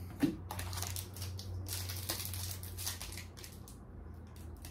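Foil booster-pack wrapper crinkling in a run of short crackles as it is handled, thinning out in the last second or so, over a steady low hum.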